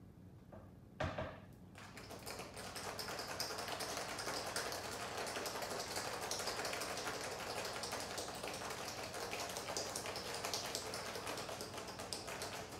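Metal cobbler shaker being shaken hard with ice: a sharp knock about a second in, then a fast, steady rattle of ice against the metal that keeps up until the very end.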